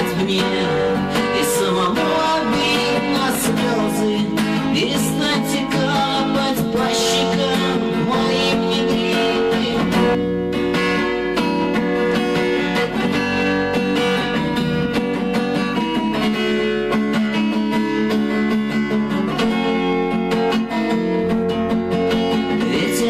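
Music: an instrumental passage of a guitar song, with acoustic guitar over a fuller backing, playing steadily without words.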